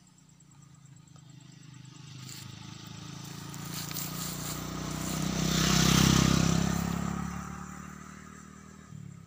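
A motorcycle passing along the road: its engine grows louder, is loudest about six seconds in, then fades away.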